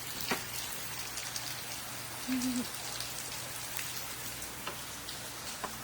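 Steady rushing hiss of water, with a few light clicks scattered through it.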